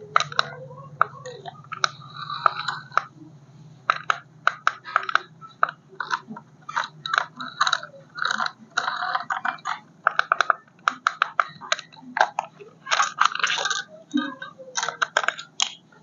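Plastic packaging and toy car parts being handled, with rapid irregular clicks, crinkles and rattles over a steady low hum.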